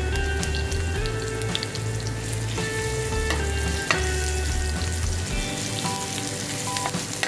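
Sliced red onions and minced garlic sizzling and crackling in hot oil in a wok, stirred with a metal spoon. There is a sharp clink of the spoon against the pan about four seconds in.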